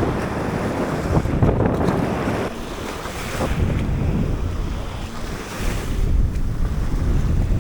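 Wind buffeting the microphone over small waves washing on a sandy shoreline.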